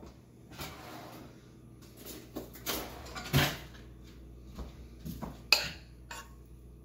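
A fork and dishes clinking and knocking as food is served from a pot onto a plate, a handful of separate knocks with a sharp clink about five and a half seconds in.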